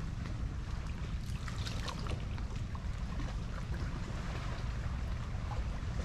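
Wind on the microphone making a steady low rumble, with faint scattered ticks and chirps above it.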